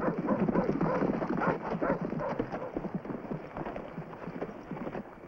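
Hooves of several horses clopping on dirt as a small group of riders walks in, a dense jumble of hoofbeats that grows quieter toward the end.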